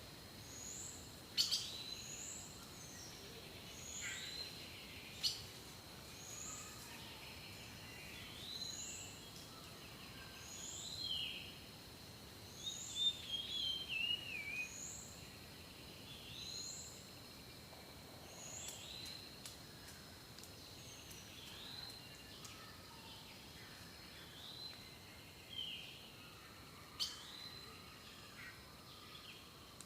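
Birds singing: one repeats a short, high two-part call about every second and a half, with a brief falling twitter about halfway through. A thin, steady high tone runs underneath, and a few sharp clicks come near the start and near the end.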